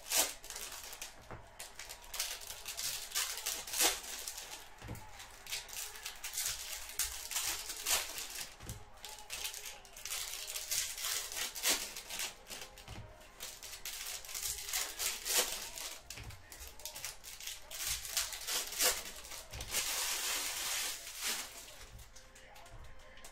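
Trading card packs and cards being handled: wrappers crinkling and cards clicking and flicking in a steady run of crackles and snaps, with a longer stretch of crinkling near the end.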